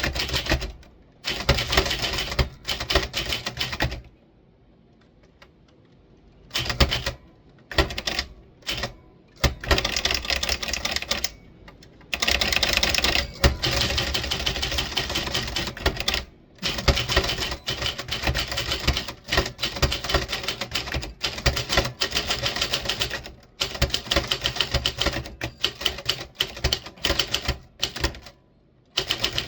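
Typewriter being typed on, rapid runs of key strikes in bursts with short pauses between them and one longer pause a few seconds in.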